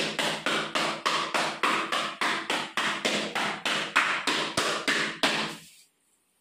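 Rapid, even hammering, about four to five blows a second, that stops abruptly about five and a half seconds in.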